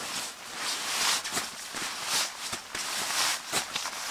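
Nylon shell of down gear rustling and swishing as it is handled and shifted close by, in irregular swells with a few small ticks.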